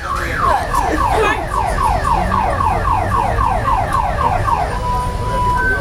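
Car alarm sounding: a quick run of falling whoops, about three or four a second, which near the end switches to a steady high tone. A low rumble lies underneath.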